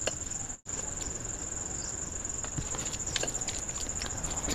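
Crickets chirring steadily in a high, fine pulse, with a brief dropout about half a second in. Over it come soft, scattered clicks of a hand mixing rice and curry on a steel plate, and a mouthful being taken near the end.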